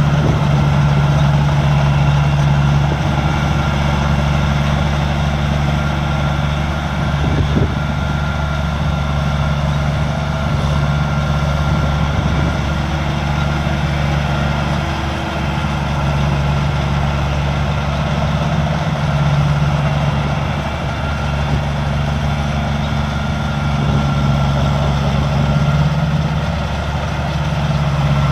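Combine harvester engine running steadily, its hum swelling and easing a little at times.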